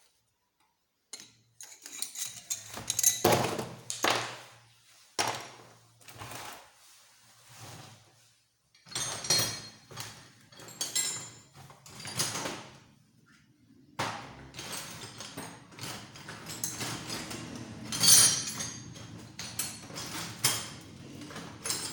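Irregular metal clanks, knocks and scrapes of tools and engine parts being handled during a small motorcycle engine teardown. From about halfway through, a steady low hum runs beneath the clatter.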